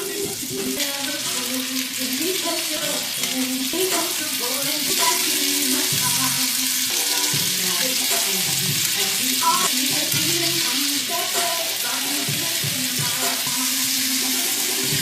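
Shrimp sautéing in a hot frying pan, a steady loud sizzle, with background music playing under it.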